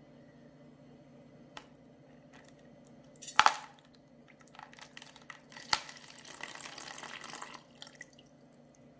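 Meltwater poured from a vacuum-insulated thermal mug into a plastic container: a sharp clatter about three and a half seconds in, then water splashing into the container, strongest for a second or two before it stops near the end.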